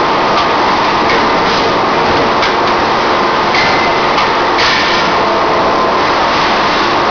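Steady loud machinery noise of a spot-welding production line, broken by short hissing bursts and clicks, the longest about three and a half to five seconds in.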